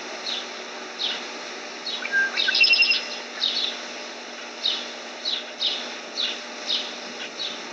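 Small birds chirping: short, high, downward-slurred chirps repeated every half second or so, with a quick rattled run of notes about two and a half seconds in, over a steady outdoor background hiss.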